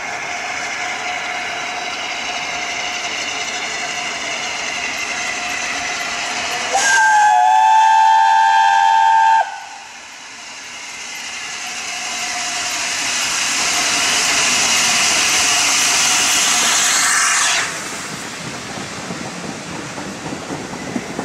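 Steam locomotive 60163 Tornado (LNER A1 Pacific) blows its whistle for about three seconds, a short upward glide into a steady note. Its exhaust and running noise then grow loud as it comes close, dropping suddenly near the end to the quieter rattle of the passing coaches.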